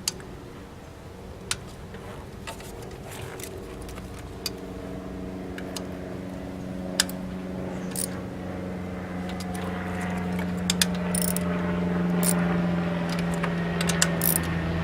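Scattered sharp metallic clicks and clinks of a socket ratchet working on the intake plenum bolts. A steady low hum rises underneath from about four seconds in and grows louder toward the end.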